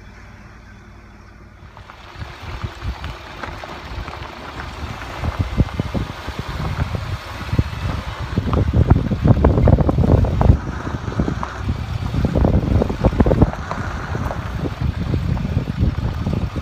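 Wind buffeting the microphone of a camera mounted on the outside of a moving four-wheel drive on a dirt track, a rough, gusting rumble that comes in strongly about two seconds in.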